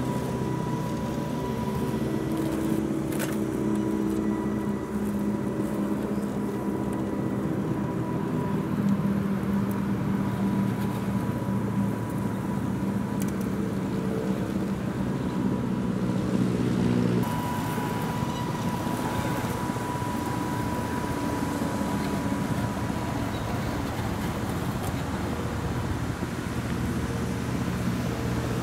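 Electric motor and gear drive of a 1:10-scale RC4WD Land Rover Defender 90 crawler whining steadily as the truck crawls over dirt, with a thin high tone over a lower hum. The sound changes abruptly about two-thirds of the way through.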